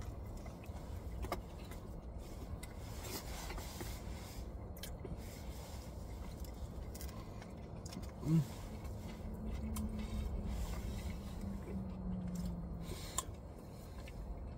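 A man chewing and biting into a cheesesteak sandwich, with faint wet mouth clicks, a short "mm" about eight seconds in and then a long steady hummed "mmm" lasting a few seconds, over a low steady rumble inside a car.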